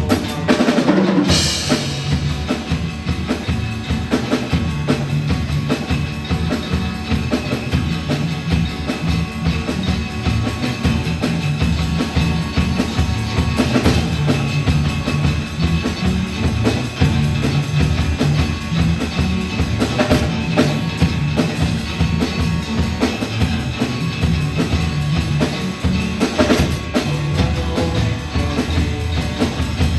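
Rock band playing a driving song: steady drum-kit beat with bass drum and snare, over bass and guitar.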